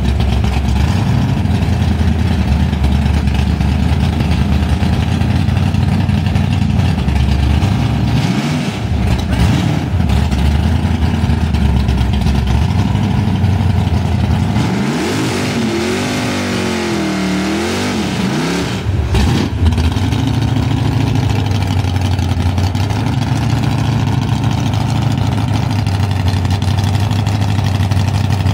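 A 2001 Ford Mustang GT drag car's V8 idling loudly, with a short rev about eight seconds in. About fifteen seconds in it revs up and down for several seconds through a burnout, over a hiss of spinning tyres, then drops back to idle.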